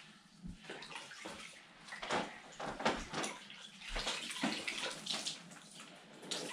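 Water sloshing in a small plastic bucket as a sponge and cloth rags are dipped in and pulled out, in short uneven strokes.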